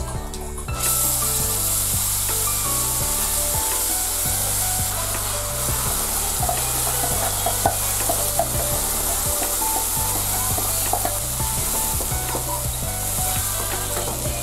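Cumin seeds sizzling in hot oil in a pan for a tadka. The sizzle starts suddenly about a second in and runs on steadily, with a few light clicks.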